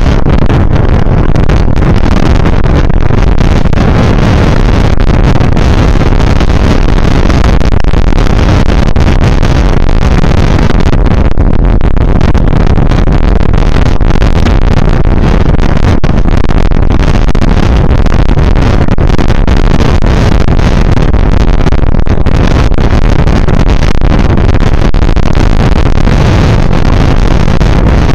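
Loud, steady wind rumble on the microphone of a camera riding on a moving bicycle.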